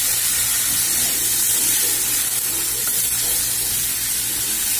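Dried bisugo (threadfin bream) sizzling steadily as it shallow-fries in hot cooking oil in a pan.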